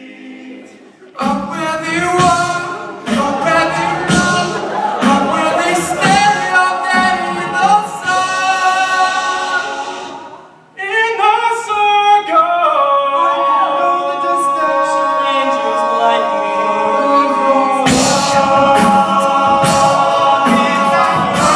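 Male a cappella group singing in close harmony with no instruments. It starts soft, comes in loud and rhythmic about a second in, thins just before the middle to long held chords, and builds back to full, rhythmic singing a few seconds before the end.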